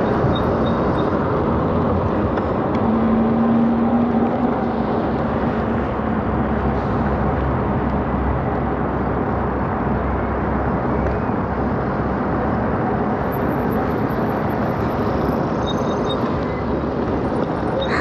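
Steady rush of wind and road noise on the microphone of a moving electric bike, with a brief steady hum about three seconds in.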